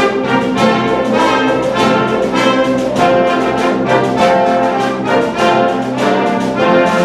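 Symphony orchestra playing, with the brass section prominent in quick repeated notes.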